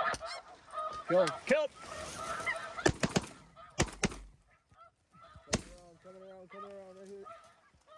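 Snow geese honking as a flock circles low over the decoys. Several sharp bangs of shotgun fire break in, two close pairs about three and four seconds in and another near the middle.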